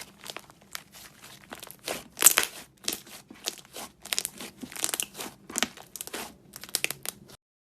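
Slime being squeezed and kneaded by hand, making a run of irregular crackling and popping clicks, loudest about two seconds in. The sound cuts off just before the end.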